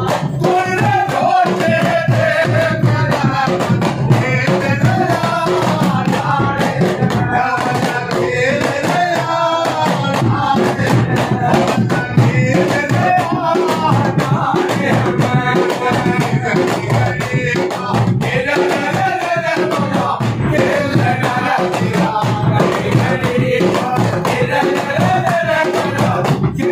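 A group of men singing a devotional folk song together, accompanied by small hand drums beaten with sticks and a large rope-tensioned dhol, in a steady, driving drum rhythm.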